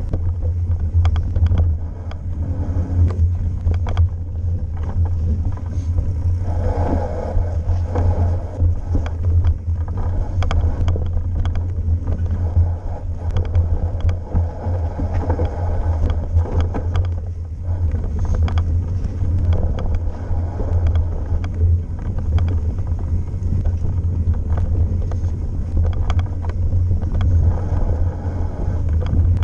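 A mountain bike descending a dirt forest trail at speed, with frequent knocks and rattles over bumps, under a steady low rumble of wind on the camera's microphone.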